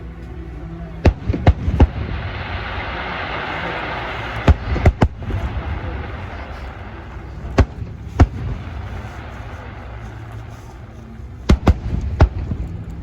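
Fireworks bursting: sharp bangs in clusters of two or three, with a crackling hiss after the first cluster.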